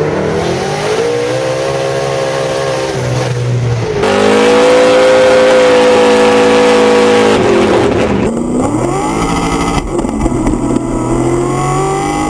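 Loud car engine revving hard, its pitch climbing and dropping with the throttle, then held at a steady high pitch for about three seconds during a smoky burnout before it revs up and down again.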